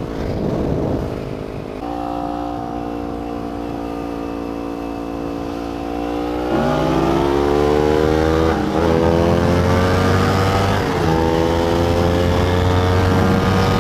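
Kawasaki Ninja 250 motorcycle's parallel-twin engine accelerating through the gears, its pitch climbing steadily. The revs and loudness jump about six and a half seconds in, and the pitch dips briefly at shifts near nine and eleven seconds before climbing again.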